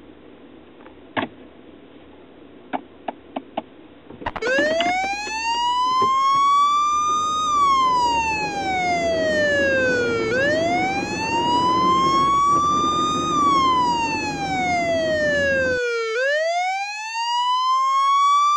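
Police car siren wailing, starting about four seconds in after a few faint clicks, its pitch rising and falling slowly, about six seconds per full cycle. A low rumble runs under it and stops near the end.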